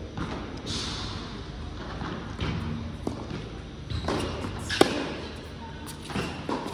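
Indoor tennis rally: a series of sharp racket strikes on the ball and ball bounces on the hard court, ringing in a large hall. The sharpest hit comes a little under five seconds in.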